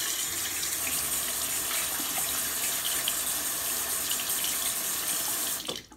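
Bathroom sink tap running steadily while hands are washed under the stream. The water is shut off suddenly near the end.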